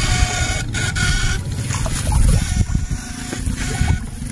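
Water sloshing and churning around a person wading waist-deep through a canal, with a heavy low rumble. Faint high tones come and go over it.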